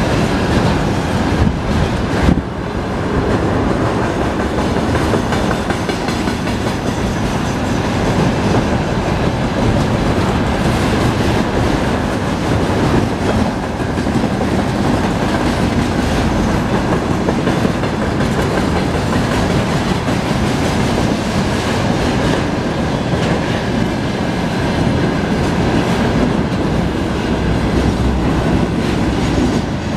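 Container flatcars of a long freight train rolling past steadily, their wheels running over the rails with a continuous rumble and clatter.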